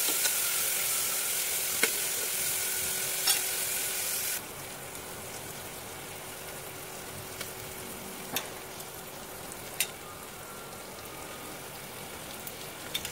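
Sliced onions and whole spices sizzling in hot oil in a pressure cooker pan, with a metal spatula stirring and a few sharp taps against the pan. The sizzle drops suddenly quieter about four seconds in, then carries on steadily.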